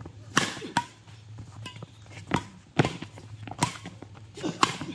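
Badminton rackets striking a shuttlecock in a doubles rally: about six sharp hits, irregularly spaced.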